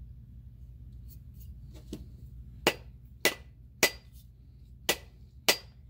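Rubber mallet knocking on the butt of a new wooden handle to drive a Stanley half hatchet's head down onto it. Five sharp knocks come about half a second apart, with one longer pause, starting a little under halfway in, each with a short ring.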